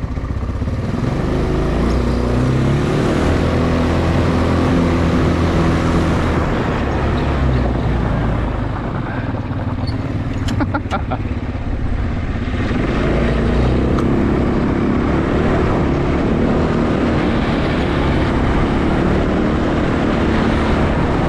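Vehicle engine running under way. It eases off about nine seconds in, with a few sharp clicks, then pulls again.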